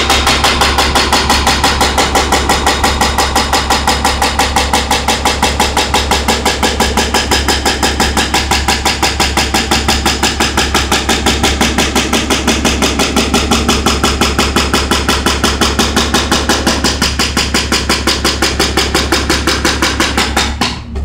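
Hydraulic breaker hammer on a Cat mini excavator pounding a concrete floor in a fast, steady run of blows, over the low drone of the excavator's diesel engine. The hammering stops just before the end.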